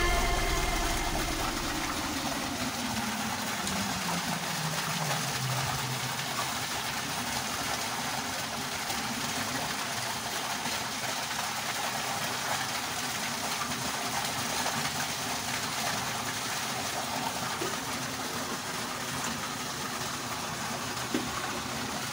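Steady rushing of water. A low tone slides downward over the first five seconds as music fades out.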